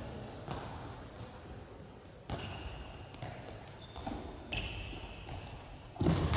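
Handball thuds and bounces on a sports-hall floor, with short sneaker squeaks between them. Near the end a much louder bang, echoing through the hall, as the ball is shot at the goal.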